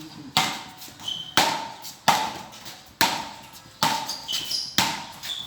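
Road tennis rally: wooden paddles hitting the ball back and forth, six sharp cracks about a second apart.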